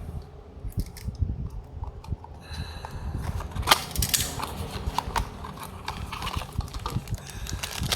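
Handling noise from unboxing small die-cast toy cars: scattered clicks and light taps over a low rumble, with one sharper knock a little under four seconds in.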